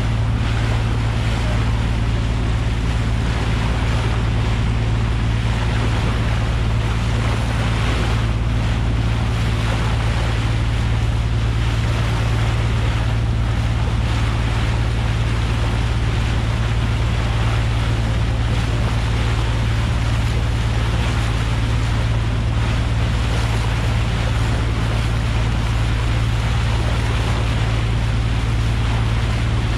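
Boat engine running at a steady cruising drone while the hull pushes through the sea, with the bow wave rushing and splashing alongside and wind buffeting the microphone.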